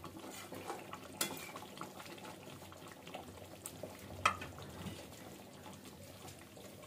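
Chicken korma gravy simmering on a low flame in a metal kadhai, a faint steady bubbling with small pops, broken by two sharp knocks, one just over a second in and a louder one about four seconds in.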